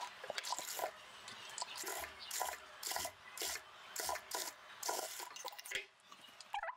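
Chiffon and lace fabric rustling and rubbing in short, irregular swishes as it is handled and pushed across a sewing machine bed.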